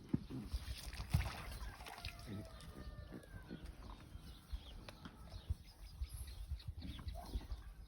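Short chirping animal calls, with scattered low thumps and rustling.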